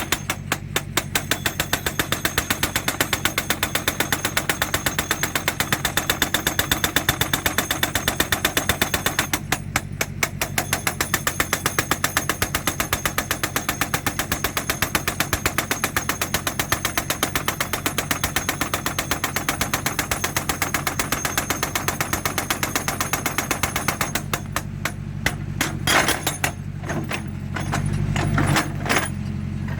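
Hydraulic breaker on a JCB 3D backhoe loader hammering rock in rapid, even blows over the machine's running diesel engine. It pauses briefly about ten seconds in, breaks into separate, uneven blows near the end and then stops, and the engine gets louder.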